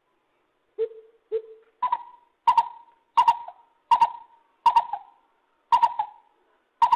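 An animal of the rice paddies calling a repeated series of short, hollow notes: two lower notes about a second in, then a steady run of higher notes about one every 0.7 seconds, each starting sharply.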